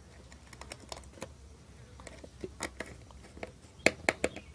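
Faint, irregular small clicks and taps as hands fit a red wire into the switch terminal of a plastic electrical switchboard, with a few sharper clicks near the end.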